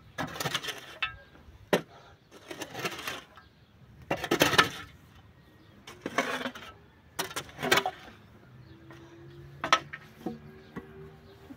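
A steel shovel blade scraping and scooping into dry, stony earth in about a dozen irregular strokes a second or so apart, with sharp clinks where it strikes stones. The loudest stroke comes about four and a half seconds in.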